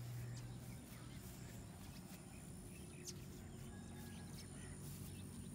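Quiet farmland ambience: a steady low hum with a few faint bird chirps.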